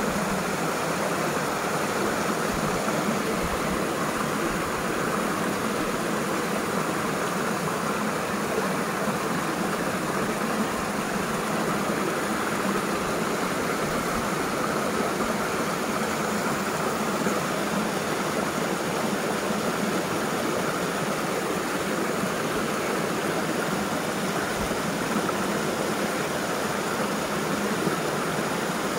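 Steady rushing of a flowing river.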